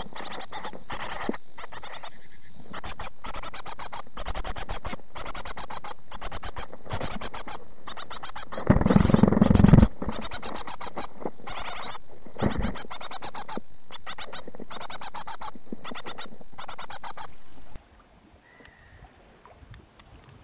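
Great tit nestlings inside a nest box giving rapid, high-pitched begging calls in repeated bursts of quick chirps, with a loud rustling scuffle about nine seconds in as the brood jostles. The calls cut off sharply near the end, leaving only faint outdoor sound.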